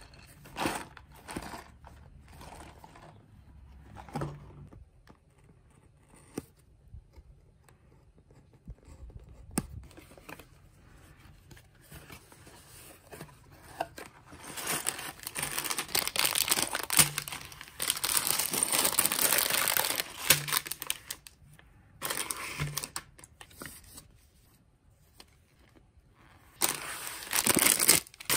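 A cardboard LEGO box being handled and opened, with light taps and scrapes, then long spells of loud crinkling and tearing from the sealed plastic bags of bricks, from about halfway through and again near the end.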